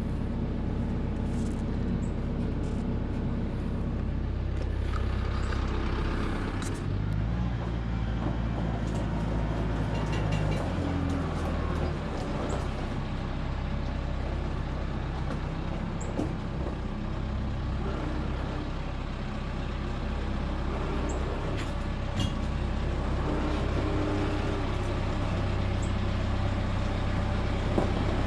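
Tractor engine running steadily, its pitch shifting for a few seconds about seven seconds in, with occasional clicks and knocks.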